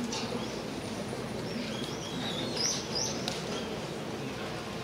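A small bird chirping several short, high notes in the middle, over the steady background murmur of a ballpark crowd, with one sharp crack at the very end.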